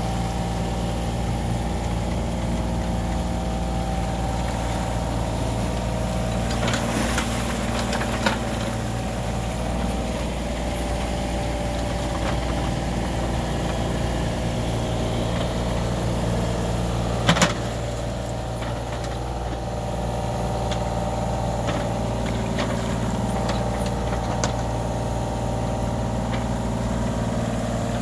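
Kubota U35-4 mini excavator's diesel engine running steadily as its bucket digs into wet, muddy soil. A few sharp knocks come through, the loudest about seventeen seconds in.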